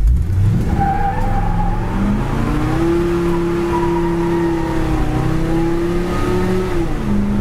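Big-block Ford V8 in a 1965 F100 pickup pulling hard under heavy throttle, heard from inside the cab. The engine note climbs steeply for a few seconds, holds high, then drops sharply near the end as the automatic transmission upshifts.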